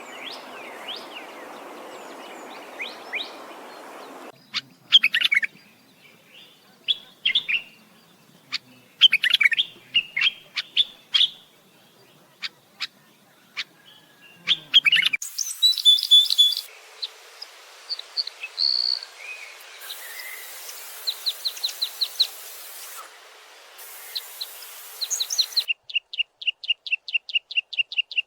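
Small songbirds chirping and singing: scattered calls, short trills and whistles, ending in a fast, even run of chirps about six a second. A steady rushing noise lies under the first four seconds, and the background changes abruptly several times between spliced recordings.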